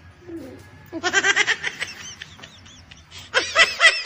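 Rapid, high-pitched cackling laughter in two bursts, one starting about a second in and the other near the end.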